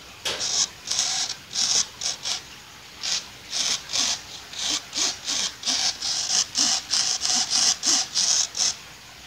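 Rhythmic rasping strokes, about two to three a second, with a short pause about two and a half seconds in. The strokes stop shortly before the end.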